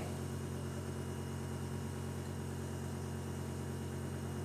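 A steady low hum that does not change, made of several even low tones, with faint hiss above it.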